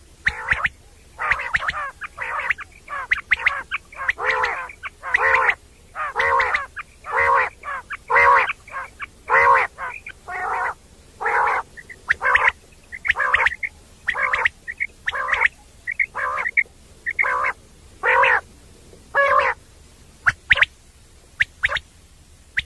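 Common quail calling: a rapid series of short repeated calls, one or two a second, growing sparser near the end.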